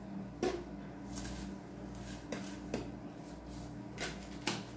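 Light knocks and clicks of kitchen bowls and containers being handled on a countertop as more breadcrumbs are added to the breading bowl, about half a dozen scattered taps over a faint steady hum.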